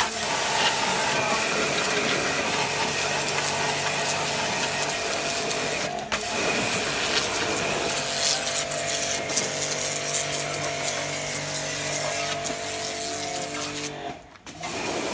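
Pressure washer running, its pump motor humming steadily under the hiss of the high-pressure jet spraying a truck's steel chassis frame. The sound dips briefly about six seconds in and cuts out for a moment near the end.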